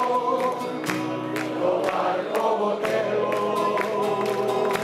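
A group of voices singing a folk-song refrain in chorus, accompanied by a strummed acoustic guitar.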